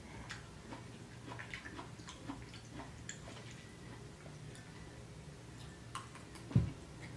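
Mouth eating sounds: chewing vegetable lo mein, with many small wet clicks and smacks. A single dull low thump about six and a half seconds in is the loudest sound.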